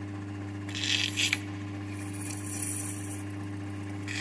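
A flat hand file rasping against a brass workpiece turning in a capstan lathe's collet, rounding off its corners. There is a loud stroke about a second in and a lighter, higher one around two to three seconds, over the steady hum of the running lathe.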